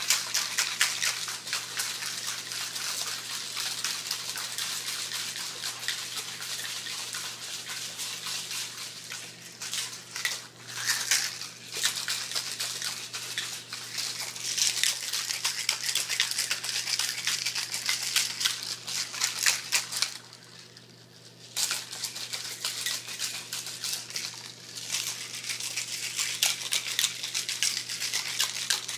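Plastic Ice Cream Magic ice-cream maker shaken hard by hand, the half-melted ice and salt inside rattling and sloshing in a rapid, continuous racket. The shaking stops briefly about two-thirds of the way through, then starts again.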